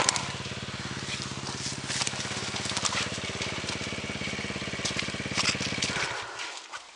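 Enduro dirt-bike engine idling steadily, then shut off about six seconds in. A few short crackles, like twigs snapping underfoot, sound over it.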